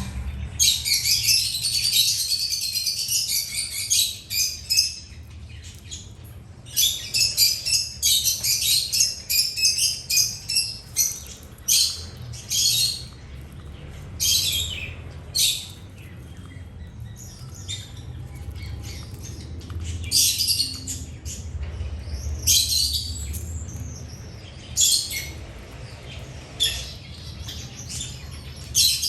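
Small birds chirping in rapid bursts, a dense run for the first five seconds or so, then shorter bursts with pauses between them, over a faint low rumble.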